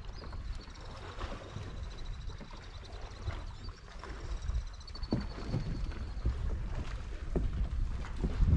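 Water slapping and lapping against a plastic fishing kayak's hull, with wind on the microphone and small knocks of gear on the deck. A faint high ticking runs through the first half, and a louder thump comes near the end.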